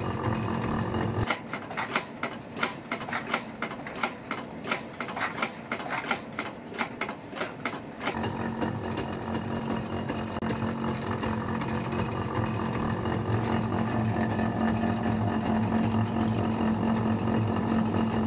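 Running footfalls on a space station treadmill, an even patter of about three steps a second from about a second in until about eight seconds in. Before and after it the cabin's machinery hum and a steady low tone carry on alone.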